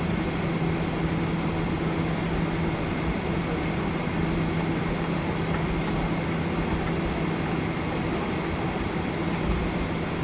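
Jet airliner taxiing, heard from inside the passenger cabin: the engines at taxi power give a steady drone with a low hum.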